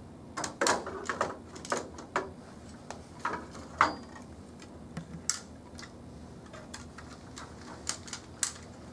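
Replacement power-wheelchair battery being set down into its plastic battery tray and pushed into place beside the second battery: a run of irregular knocks and clicks, most of them in the first four seconds, the sharpest just before four seconds in.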